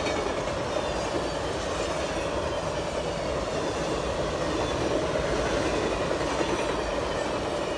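Passenger coaches of a long train rolling past on the track, a steady noise of wheels on rails.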